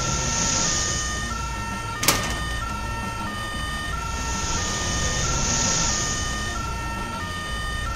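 Two-tone fire engine siren, switching between a high and a low note about every 0.6 s, over a low engine rumble. A rushing hiss swells twice, and there is one sharp click about two seconds in.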